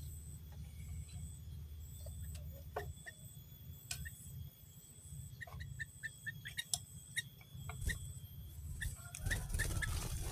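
Small birds giving short, scattered chirps, with a faint high note repeating about once a second, over a steady low rumble.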